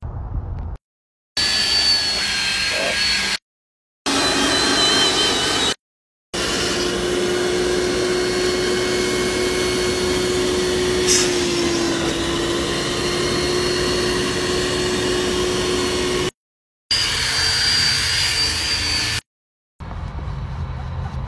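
Upholstery extractor's vacuum motor running with a steady whine as its nozzle draws over a cloth car seat. It comes in several short clips, each cutting off abruptly into a brief silence; the sound is quieter near the end.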